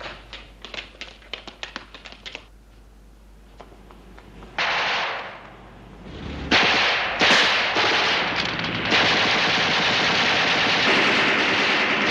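Battle gunfire: a quick, uneven string of sharp shots for about two seconds, then a loud burst after a short lull. Heavier firing follows and builds into a dense, steady din for the last few seconds.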